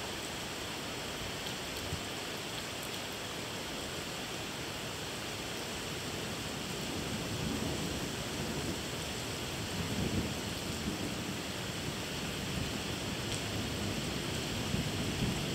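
Steady rain falling in a thunderstorm, with low thunder rumbling up about halfway through and again near the end.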